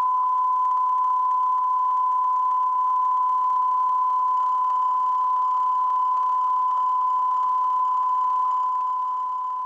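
Steady 1 kHz line-up reference tone accompanying the colour bars at the head of a videotape, a single unbroken pure tone over faint tape hiss, getting slightly quieter near the end.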